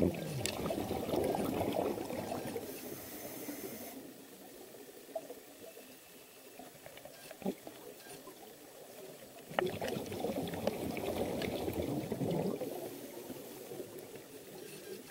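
Scuba diver's exhaled bubbles bubbling underwater, in two breaths: one exhalation over the first three seconds, a quieter gap, then another exhalation about ten seconds in.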